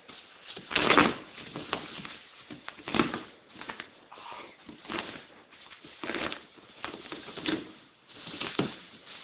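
Bubble wrap crinkling and rustling in irregular bursts about once a second, with sharp crackles among them, as the wrapped person struggles and it is cut and pulled.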